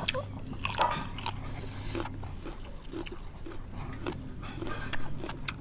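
Close-up biting and chewing of spicy seafood salad with chewy giant squid tentacle, heard as scattered wet clicks and crunches, with a dog whining in short bursts near the start.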